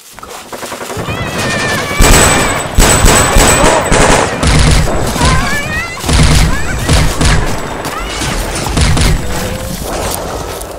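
Rapid gunfire from a firefight, shots in repeated bursts, growing loud about two seconds in.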